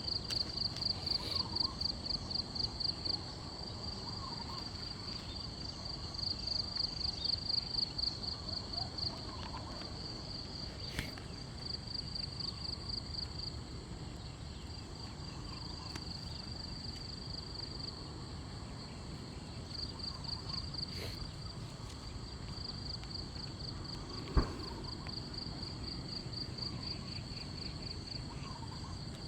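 Night insects, a cricket-like rapidly pulsed high-pitched trill running on in louder and softer spells, with a single sharp click about 24 seconds in.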